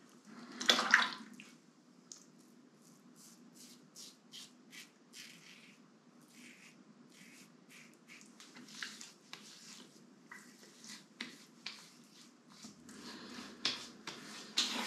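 Stainless-steel double-edge safety razor (Razorock Lupo) with a Gillette 7 O'Clock Super Platinum blade, scraping through lathered stubble in a run of short strokes, about two or three a second. A brief louder splash of water comes about a second in.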